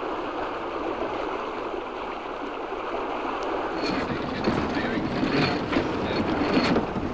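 Water rushing and splashing along a racing yacht's hull, a steady wash; about four seconds in it grows fuller, with a few sharp clicks and knocks.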